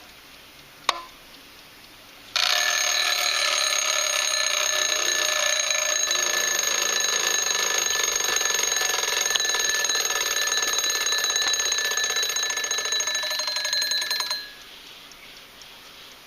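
Vintage mechanical wind-up alarm clock: a single sharp click about a second in, then its alarm bell rings loudly for about twelve seconds, a rapid hammer rattling against the bell, and stops, leaving faint ticking.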